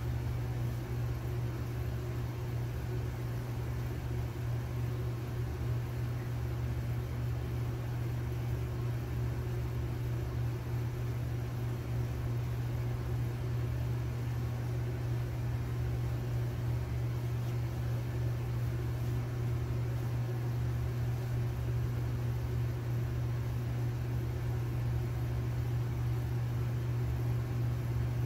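A steady low hum, unchanging throughout, with no distinct footsteps standing out.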